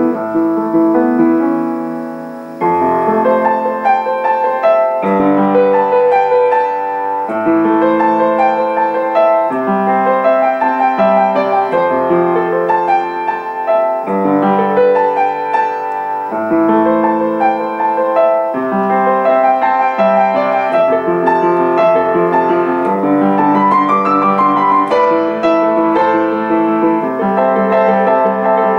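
Upright piano playing a solo piece. A held chord fades, then playing picks up again about two and a half seconds in, with melody over chords that repeat in even phrases of about two seconds.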